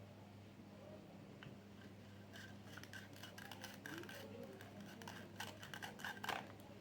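Small plastic toy pieces and packaging being handled: light clicks, taps and scratchy rustles, starting about two seconds in and thickest near the end, over a low steady hum.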